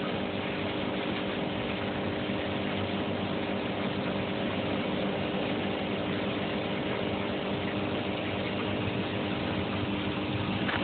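Aquarium filter pump running: a steady mechanical hum over a constant wash of water noise.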